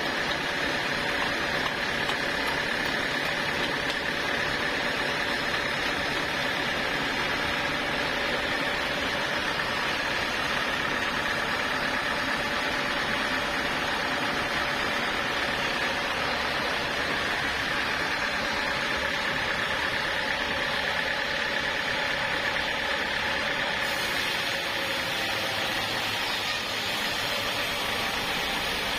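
Sawmill saw running steadily, a constant high whine over a dense mechanical noise that holds an even level throughout.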